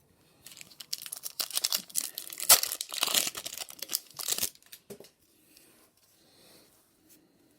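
Trading-card booster pack wrapper being torn open and crinkled for about four seconds, then a few faint ticks.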